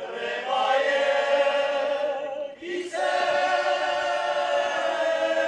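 Men's choir singing a cappella: two long held phrases, with a short break for breath about two and a half seconds in.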